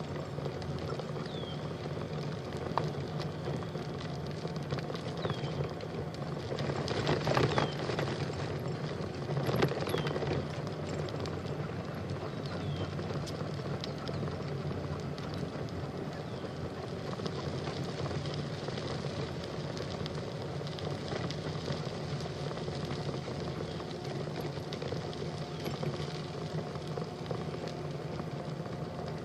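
Steady rushing noise of riding a bike along a trail, with a faint short chirp repeating about every two seconds and a louder swell of noise about a quarter of the way in.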